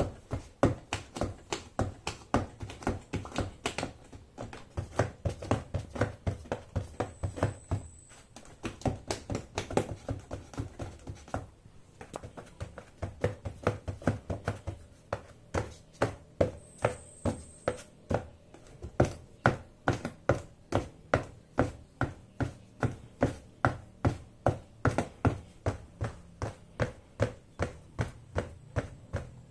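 Silver high-heeled pumps tapping on the bottom of a cardboard box: a steady run of sharp taps at about three a second, broken by a brief pause about twelve seconds in.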